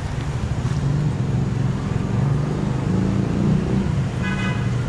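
Steady low rumble of road traffic, with a brief higher-pitched call near the end.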